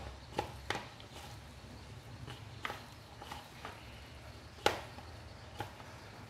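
A hand kneading sliced onions with spices and gram flour in a plastic bowl: irregular soft clicks and taps as the mixture is squeezed and pressed against the bowl, the loudest a little under five seconds in.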